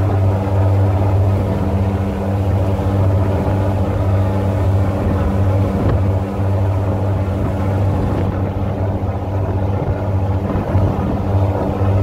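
A boat's engine running steadily, a deep, even hum that holds the same pitch throughout.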